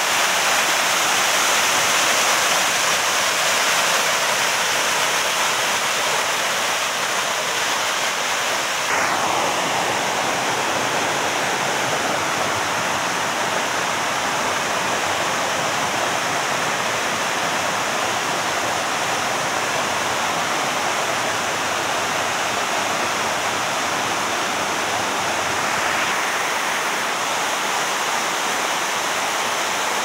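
Waterfall cascading over bare rock slabs: a steady rush of white water.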